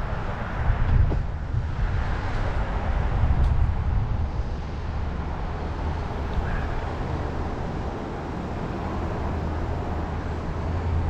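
Steady wind rush and tyre rumble from a bicycle being ridden along a bumpy road, picked up by a handlebar-mounted camera.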